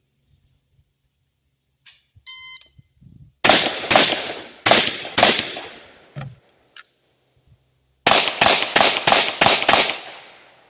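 An electronic shot timer beeps once, then gunshots follow: four shots over about two seconds, a short pause, then a fast string of about seven shots, roughly three a second.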